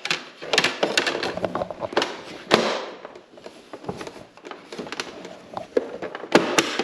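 Hand tools and metal parts clattering and clicking in quick, irregular knocks, as tools are handled and picked up.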